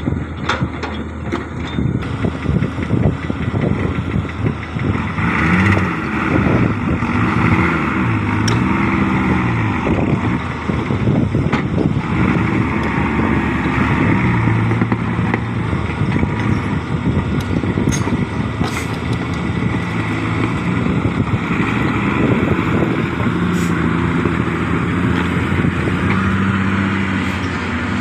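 Heavy diesel engine of an excavator running under load, its revs rising and falling again and again, with a few sharp clanks.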